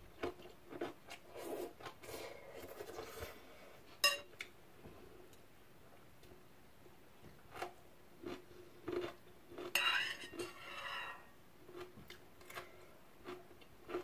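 Metal chopsticks clinking and scraping against a bowl while eating noodles. Scattered light clicks, with one sharp ringing clink about four seconds in. Noisy slurps of noodles, the longest about ten seconds in.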